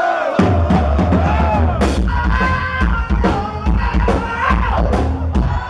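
Live rock band playing with drum kit, bass guitar and electric guitar, with voices singing a melody that the audience joins in on.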